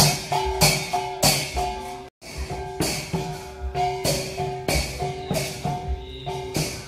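Traditional Tai procession percussion: a drum beating about three strokes a second, with cymbal clashes and gongs ringing on steady tones. The sound cuts out for an instant about two seconds in.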